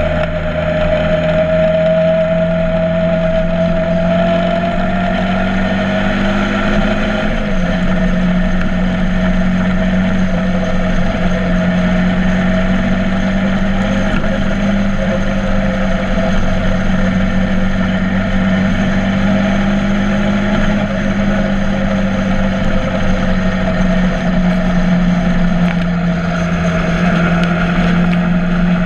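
Motorcycle engine running steadily while riding. Its pitch climbs gently over the first several seconds, dips slightly about seven seconds in, then holds fairly even.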